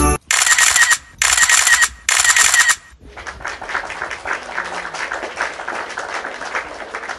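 Background music cut into choppy high-pitched blocks for about three seconds. Then the live sound takes over: a dense, irregular patter of hoofbeats from horses cantering on the training track.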